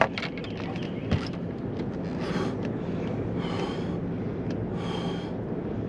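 Large blue catfish held out of the water, blowing: three short breathy hissing puffs, roughly a second and a half apart, over a steady low hum.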